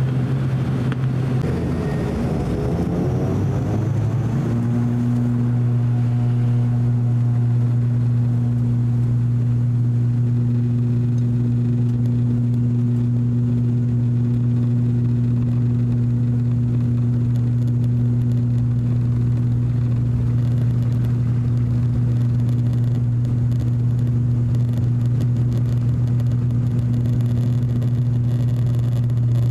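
ATR 42-600's Pratt & Whitney PW127M turboprop engines and propellers powering up for takeoff, heard from inside the cabin. The pitch rises and shifts for the first few seconds as power comes up. It then settles into a steady deep propeller drone for the takeoff roll.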